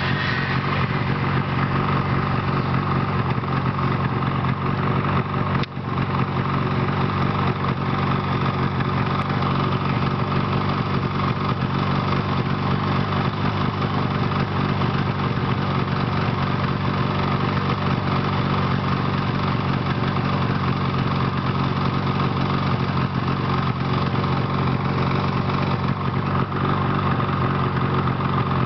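Snowmobile engine running steadily, its pitch and level unchanging throughout, with a brief dip about six seconds in.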